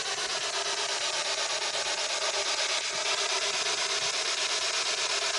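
Spirit box (radio scanner used in ghost hunting) sweeping through radio frequencies: a steady hiss of static chopped about four times a second, with faint wavering tones.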